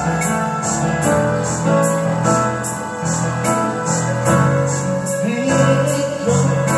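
Videoke backing track playing loudly: piano and keyboard notes over a steady beat of about two a second.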